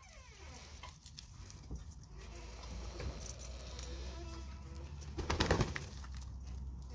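Hens clucking and murmuring softly while pecking food off a plastic plate, with scattered pecking clicks. A louder scuffle a little past five seconds in comes as one hen steps up onto the plate.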